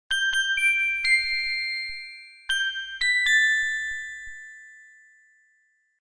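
A short jingle of bright, bell-like chime notes: four struck in quick succession in the first second, then three more from about two and a half seconds in, each ringing on and fading away slowly.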